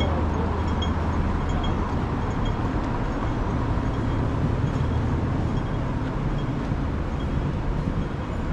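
Steady road traffic noise with a low rumble. A faint regular ticking repeats a little faster than once a second through the first half.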